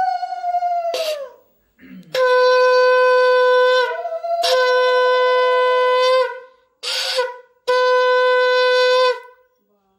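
Conch shell (shankha) blown in a series of long, steady, loud blasts, one briefly jumping up to a higher note, with a short blast between the last two. The auspicious sound of a Bengali Hindu blessing ritual.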